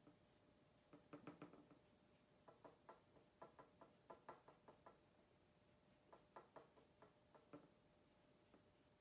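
Faint, quick light taps in four short bursts, like small painting tools such as a brush knocking on a jar or palette.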